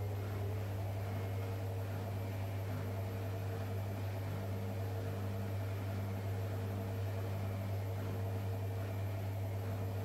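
Electrolux PerfectCare 600 EW6F3146EB front-loading washing machine running steadily, a constant motor whine over a low hum.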